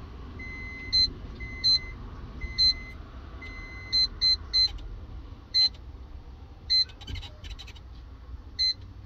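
KBS bread maker's touch-panel buttons beeping as they are pressed to set the baking time: about a dozen short, high-pitched beeps at irregular intervals, a few held longer.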